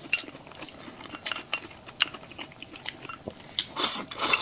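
Close-miked eating sounds: a person chewing and biting food, with sharp wet clicks, and two louder noisy bursts near the end.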